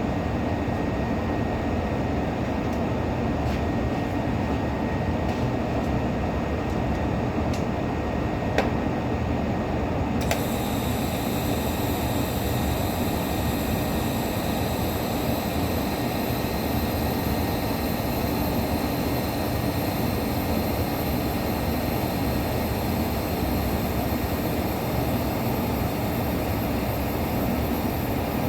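Steady mechanical noise, like a running machine or a ventilation blower, with a few light clicks. About ten seconds in, a high-pitched whine joins it and carries on steadily.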